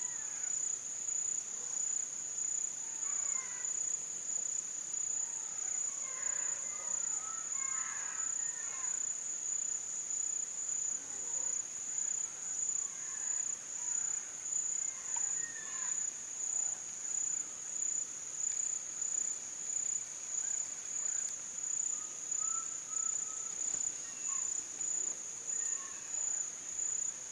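Insects chirring in a steady, high-pitched, rhythmically pulsing drone. Faint bird chirps sound now and then.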